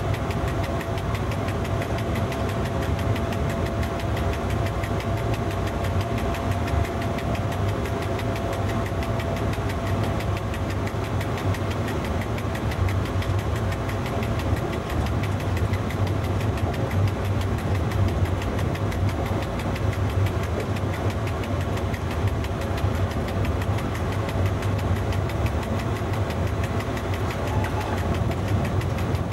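Steady running noise in the cab of an FS E.656 electric locomotive moving slowly: a low hum and rumble. A thin steady whine over it fades out about ten seconds in.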